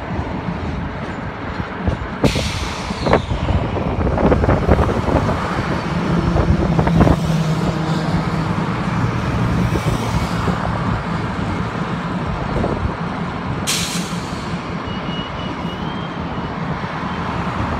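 CN GP38-2 diesel locomotives, with EMD 16-cylinder 645 engines, running at low speed with a steady drone. Clanks of couplers and slack come in the first few seconds, and a sharp air-brake hiss comes about two seconds in, with a shorter hiss about three-quarters of the way through.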